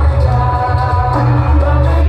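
Very loud music played through a sound horeg rig, a stack of large loudspeakers on a truck: a heavy, dense bass under a melody line.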